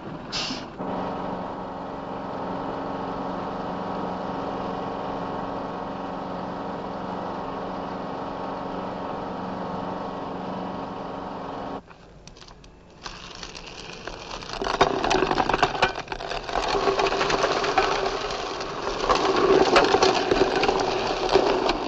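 Unimog's engine running at a steady pitch, cutting off abruptly about twelve seconds in. After a short lull comes loud rattling and crackling of rubble and debris sliding out of a tipped trailer bed.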